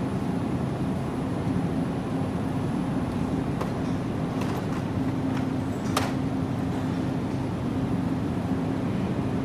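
Steady low electric hum of a supermarket's open refrigerated display case and its fans, with a few faint clicks, the sharpest about six seconds in.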